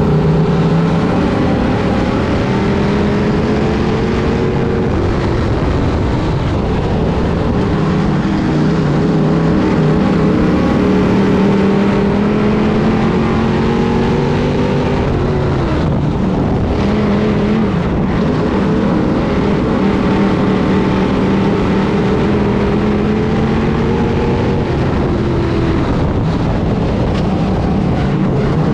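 Onboard sound of a 602 Sportsman dirt modified's GM 602 crate V8 at racing speed, loud and steady, its pitch climbing slowly along the straights and dropping sharply a few times as the driver lifts for the turns, over tyre and wind noise.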